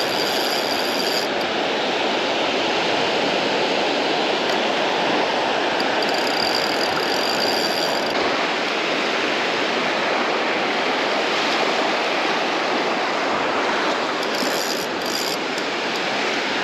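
Surf on a beach: a steady rush of waves breaking and washing up the shore.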